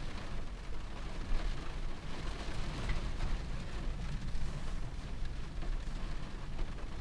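Steady rain falling on a camper van's roof, an even patter over a low rumble.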